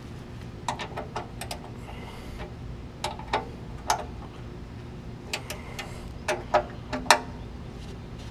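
A metal wrench clinking on the oil pan drain plug of a Ford 351 (5.8 L) V8 as it is fitted and worked: about a dozen sharp, irregular metal clicks, the loudest about seven seconds in.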